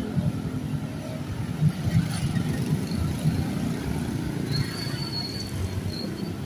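Street traffic: motorcycle and car engines running past in a steady low rumble. A thin, high, wavering squeal joins in a little past the middle and keeps going.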